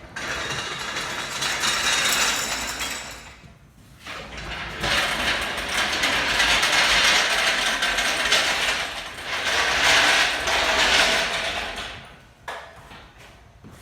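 Cherry picker (engine hoist) being rolled on its casters across the garage floor: a continuous metallic rattle and rumble in two stretches, the first about three seconds long and then, after a short pause, a longer one that fades out near the end.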